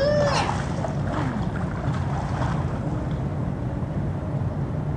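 Wind buffeting the microphone as a steady low rumble, opened by a brief high, swooping cry in the first half second.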